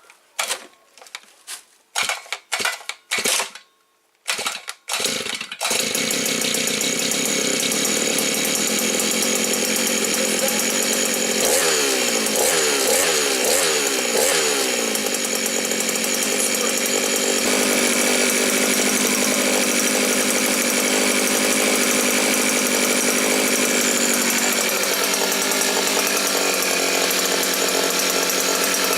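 Maxmat 43cc two-stroke brushcutter being pull-started on choke: a few short sputters with pauses, then the engine catches about five and a half seconds in and keeps running. It is revved several times in the middle, then settles into steady running.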